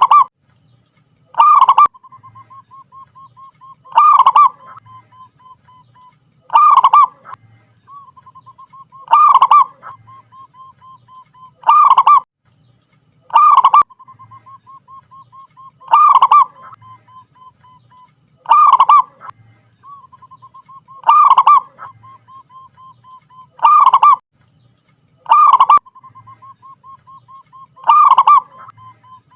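Zebra dove (perkutut) calling over and over: a soft rapid trill of short notes leading into a loud coo, the phrase repeating roughly every two and a half seconds, about a dozen times.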